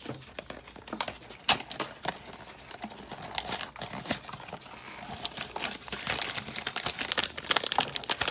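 A cardboard blind box being worked open by hand, then the foil bag inside crinkling: irregular small clicks and crackles that grow busier and louder in the second half.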